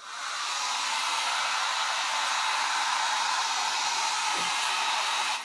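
Handheld hair dryer blowing steadily as hair is dried and brushed, coming up to full blow at the start and dropping in level near the end.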